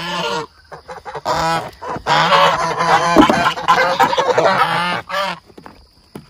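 Domestic geese (grey Toulouse and a white Chinese goose) honking as they crowd a feed bowl, several calls overlapping. The calls are loudest in the middle and die away near the end.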